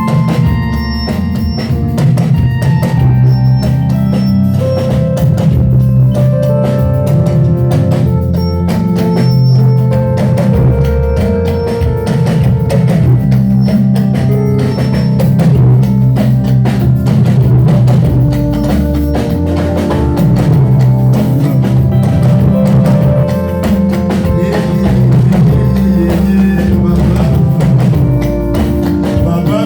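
Band music with a drum kit keeping a steady beat under sustained chords.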